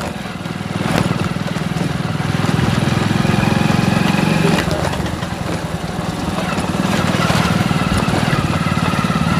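Small two-wheeler engine running steadily while riding, getting louder about a second in.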